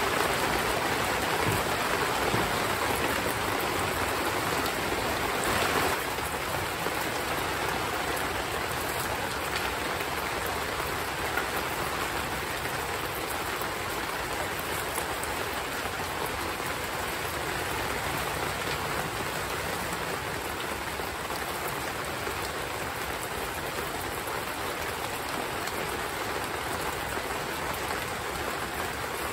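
Heavy rain falling steadily, an even hiss of patter with no break, a little louder for the first six seconds or so.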